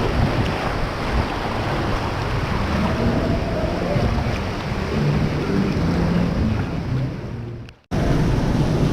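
Rushing, splashing water with wind buffeting a GoPro's microphone. It cuts out abruptly for a moment near the end.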